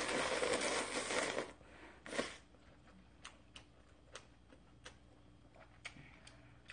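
A person slurping instant ramen noodles in shrimp broth from a bowl, a loud sucking slurp that stops about a second and a half in, then a short second slurp about two seconds in. After that come chewing sounds with small scattered clicks.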